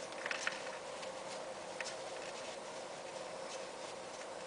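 Faint small clicks and scrapes of a metal PCV valve being threaded by hand into its port, a few near the start and one about two seconds in, over a steady faint hum.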